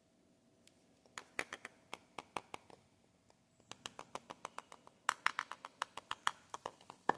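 Hands unpacking Lux soap bars and their wrappers: rapid, crisp clicks and crinkles in three runs, starting about a second in, with the last run the loudest.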